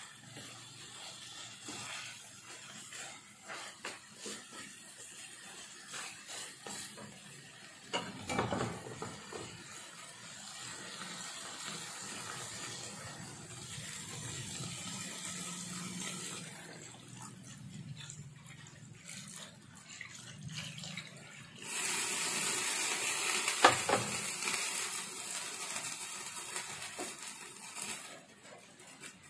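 Wooden spatula stirring and scraping spiced beef ribs frying in a pan, with a light sizzle and occasional knocks on the pan. About 22 seconds in, thin coconut milk is poured into the hot pan and a loud, even rush of pouring and sizzling lasts about six seconds.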